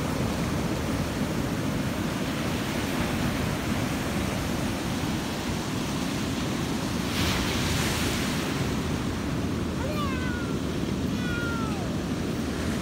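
Steady rush of surf and wind, swelling louder midway. Near the end, bullmastiff puppies give several short, high whines.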